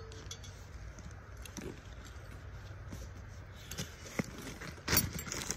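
Handling noise from a nylon bag being rummaged through, with soft rustling and a few light clicks, and a louder rustle about five seconds in.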